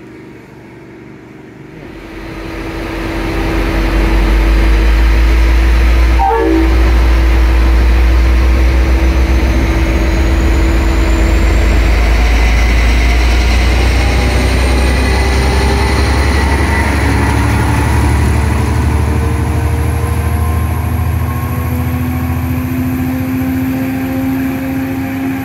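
V/Line N-class diesel locomotive, with its EMD two-stroke V12, running loud as it hauls a passenger train past along the platform. Its carriages then roll by. The heavy low rumble builds within a couple of seconds of the start and eases slowly near the end.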